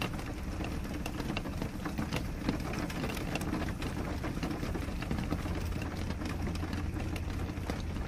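A steady low machine hum under a constant crackle of small clicks.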